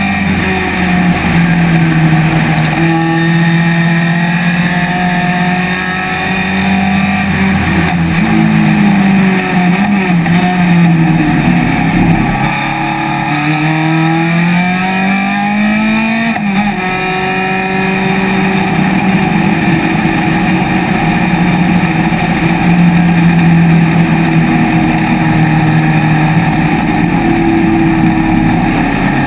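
Engine of an open-cockpit vintage race car heard onboard, running hard at high revs with wind noise. About eight seconds in, the engine note wavers and falls for a few seconds, then climbs steadily back up and holds at high revs again.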